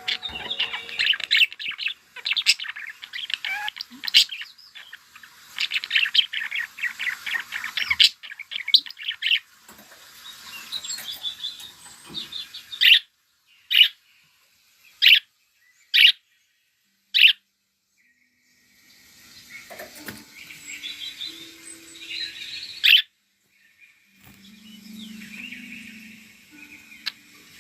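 Pet budgerigars chattering and warbling in rapid chirps, then five short, sharp calls about a second apart with silence between them, and the chatter starting up again.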